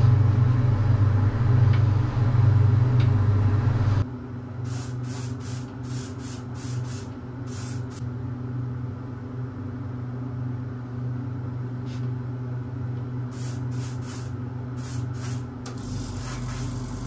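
A gravity-feed spray gun spraying paint onto shotgun metal parts in short hissing bursts, over a steady low machine hum. The hum is louder for the first few seconds and drops suddenly at about four seconds. The hisses come in two spells, one just after the drop and one near the end.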